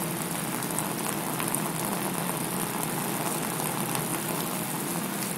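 Steady hiss and patter of water from a garden-hose spray falling on an inflatable vinyl water slide, over the constant drone of the inflatable's electric blower.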